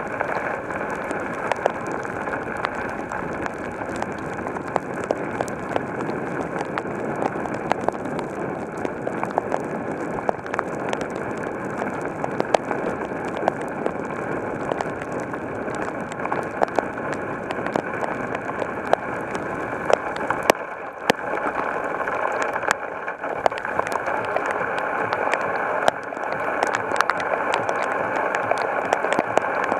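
Heavy rain pouring steadily, a dense hiss with frequent sharp ticks of drops striking close by. It eases for a moment about twenty seconds in.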